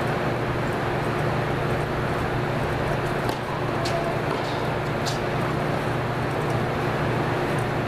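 Steady hum and hiss of an indoor tennis hall's air handling, with a few faint sharp knocks of tennis balls struck by rackets in the middle of the stretch.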